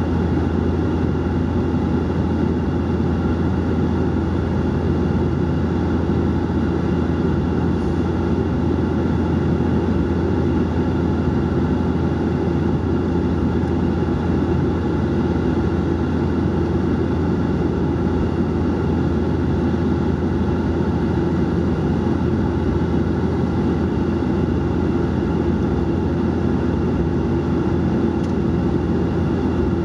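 Cabin noise inside a Bombardier Dash 8-400 turboprop airliner in flight: the propellers and engines give a steady, unchanging drone with a strong low hum.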